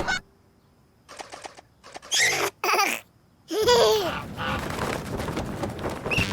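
A cartoon baby giggling and babbling in short spurts, starting about a second in, with a longer laugh in the second half.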